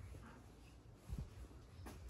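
Quiet room tone with a low rumble, a soft low thump just over a second in and a faint click near the end.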